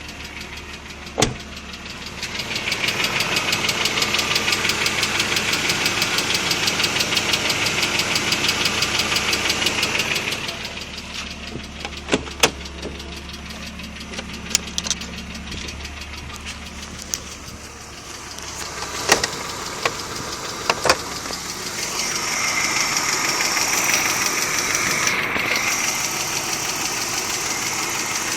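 BMW E36's M50 2.0-litre straight-six engine idling with a fast, rhythmic knocking tick, which the owner suspects is the hydraulic lifters. It gets louder for a stretch a couple of seconds in and again near the end, with a few sharper single clicks.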